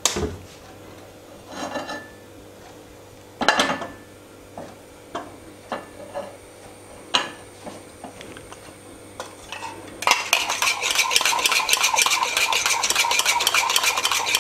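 A few scattered knocks and taps of pan and utensils on the stove. About ten seconds in, a dense, steady crackling suddenly starts: a thin layer of oil in a flat pan sizzling as it gets hot.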